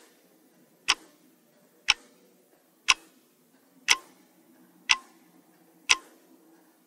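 Clock-tick sound effect for a quiz countdown timer: sharp single ticks, about one a second.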